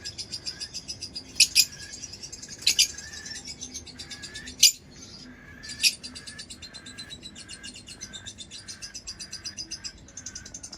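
Lovebirds chirping: a fast run of high chirps, several a second, with a lower note repeating about twice a second and four loud, sharp calls spread through.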